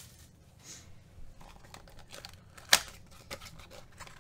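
A Topps Finest trading card box being handled: faint rustling and light ticks, with one sharp click a little under three seconds in.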